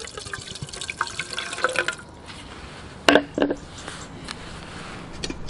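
Warm water poured from a kettle spout into a stainless steel billy pot, splashing and filling for about two seconds. A couple of sharp knocks follow about three seconds in.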